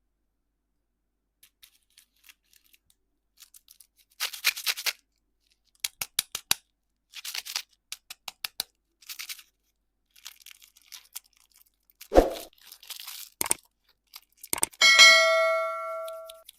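Candy packaging being torn open and crinkled in short crackly bursts and clicks, with a single thump late on and, near the end, a struck ringing ding that fades over about a second and a half.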